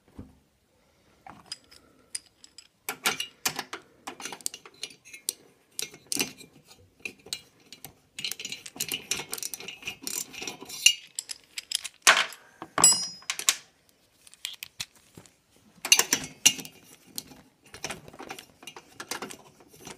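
Metal hand tools clinking and clicking as a ratchet socket wrench is picked up, handled and fitted to the cylinder-head nuts of a Vespa PX engine, with a short metallic ring a little past the middle.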